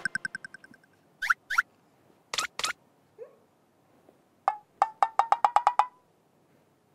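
Comedic cartoon-style sound effects added in the edit: a fading ringing tone, two quick rising blips, two sharp pops, then a fast run of ticks over a held tone, about eight a second.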